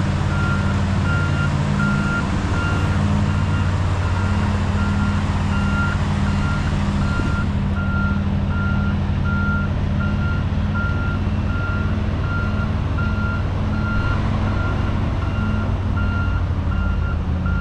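Engine of a tracked utility vehicle running steadily as it moves, with a backup alarm beeping about twice a second.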